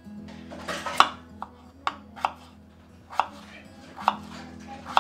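Kitchen knife chopping a peeled raw potato on a wooden cutting board: a handful of sharp, irregularly spaced knocks of the blade hitting the board, the loudest about a second in.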